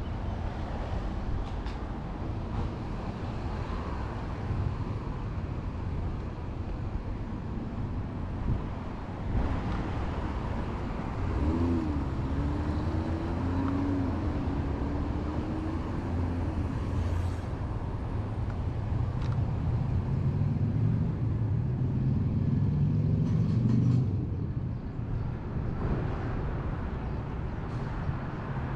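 Street traffic: a steady wash of road noise from passing cars, with an engine note rising and falling through the middle and the loudest moment as one vehicle goes by toward the end.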